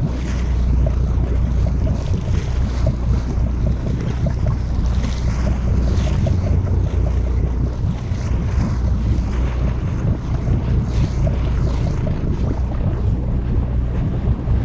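Wind buffeting the microphone over the steady low hum of the sportfishing boat's engine, with the sea sloshing against the hull.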